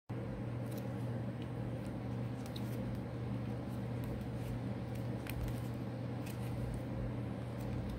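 A steady low electrical or motor hum, even in level, with a few faint short clicks scattered over it.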